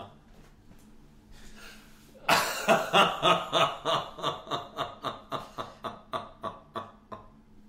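Laughter: after a couple of quiet seconds, a burst of rapid, rhythmic ha-ha pulses, about three or four a second, that gradually fades away near the end.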